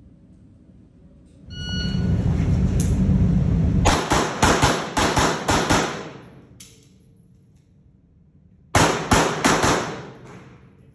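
A short electronic shot-timer beep, then a low rumble, then pistol shots: a fast string of about seven, a single shot a moment later, and after a pause of about two seconds, another quick string of about five.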